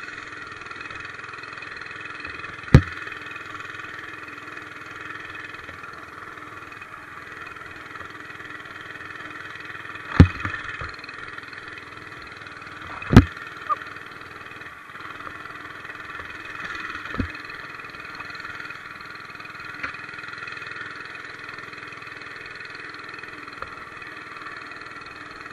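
Monster Moto 80cc mini bike's small four-stroke engine running steadily while it is ridden, its pitch changing little. Several sharp knocks stand out above it, the loudest about 3, 10 and 13 seconds in.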